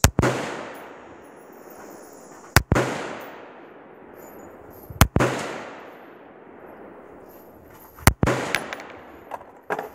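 LaRue AR-15-style rifle in 5.56 firing single shots, four reports about two and a half seconds apart, each trailing off in a long fading echo.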